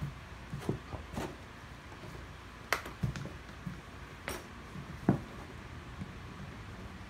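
Scattered sharp clicks and knocks from hands handling a cordless inflator, its inflation needle and a football while the needle is fitted into the ball's valve; the pump is not running. About six knocks, the loudest about five seconds in.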